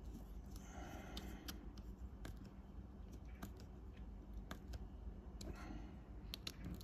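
Faint, scattered clicks and small scrapes of a small screwdriver tightening a screw into the motor of an OO gauge model railcar.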